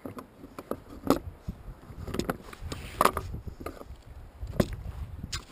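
Irregular knocks and clatter of fishing gear and a landing net being handled against a plastic kayak while a hooked pollock is brought alongside, over a low rumble.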